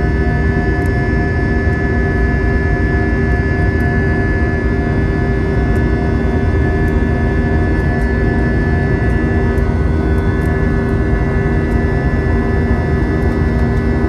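Airbus A320 cabin noise during the climb after takeoff: the jet engines run steadily, a loud, even rumble with several held whining tones over it.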